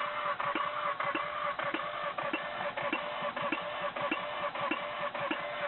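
A 1988 Mazda RX-7's rotary engine turning over with a steady whir and a sharp knock repeating evenly, about every 0.6 seconds. This is the odd knock that appeared after a loud backfire-like pop at 5,000 rpm.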